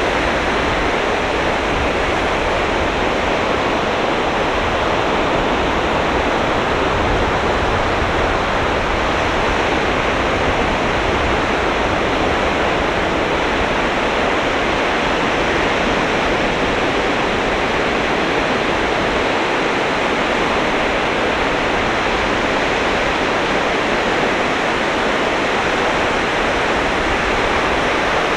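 Sea surf washing onto the beach: a steady, unbroken rush of breaking waves with no single wave standing out.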